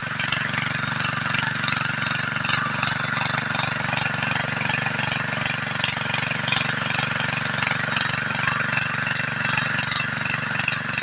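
Small gasoline engine of a power sprayer running steadily at an even speed, driving the spray pump.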